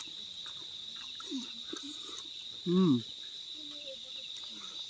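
Crickets chirping in a steady, continuous high trill. About two and a half seconds in, a short, loud vocal exclamation from a person stands out over it.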